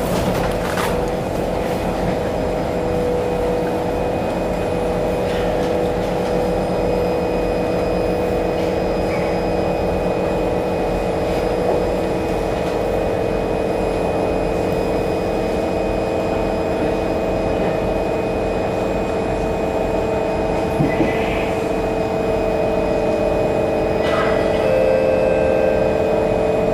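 Steady hum with several constant tones from a stationary C151 MRT train's onboard equipment, heard inside the car while it stands at the platform with its doors open.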